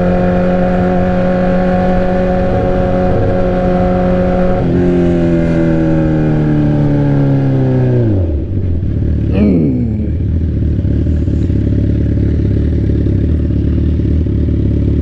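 Straight-piped sport bike engine held at steady high revs, then the revs wind down over about three seconds as the throttle closes. A short falling rev sweep follows, and the engine settles into a low, steady idle rumble for the last few seconds.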